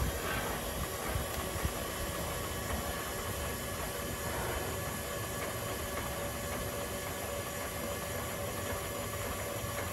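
Electric motor of a 2007 Keystone Montana fifth wheel's landing gear running steadily, driving the freshly greased leg down its screw with an even hum and a few steady tones. It runs smoothly, with no binding.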